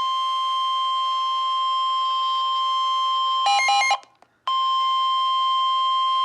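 NOAA Weather Radio warning alarm tone, a single steady high tone of about 1,050 Hz that signals a warning broadcast is about to follow. About three and a half seconds in it breaks into a brief burst of quickly changing tones and half a second of silence, then resumes.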